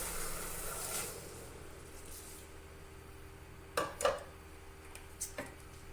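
Milk pouring into a pot of dry oatmeal, trailing off about a second in, followed by a few light knocks and clinks.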